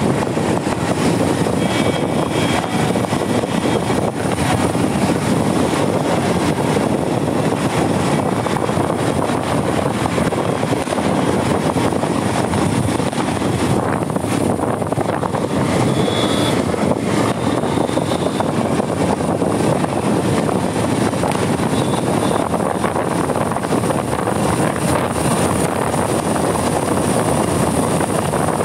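Bajaj Pulsar 220 motorcycle's single-cylinder engine running steadily at cruising speed, blended with a steady rush of wind and road noise.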